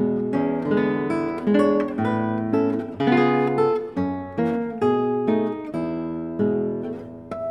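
Solo nylon-string classical guitar played fingerstyle: a slow melody over plucked chords, with a last chord struck near the end and left to ring.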